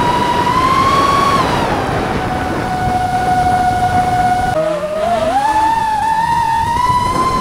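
FPV quadcopter motors whining over a rush of air, the pitch shifting with the throttle: it rises, settles lower, then about halfway through drops sharply and climbs back up.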